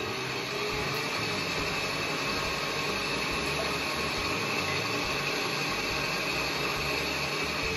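Electric stand mixer running steadily at high speed, whisking eggs in its steel bowl to break them up and froth them.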